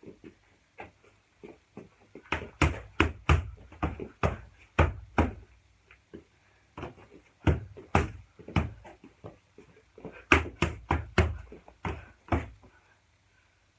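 Boxing gloves smacking into focus mitts in three quick flurries of sharp strikes, several a second, with short pauses between them and a few lighter taps at the start.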